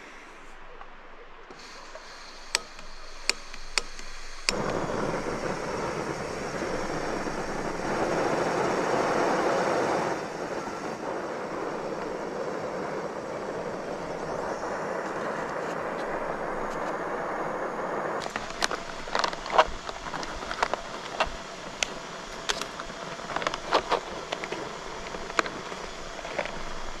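A few sharp clicks, then a camp stove burner catching about four and a half seconds in and running with a steady roar while water heats for boiling. Scattered clicks and clatter of handling over the last part.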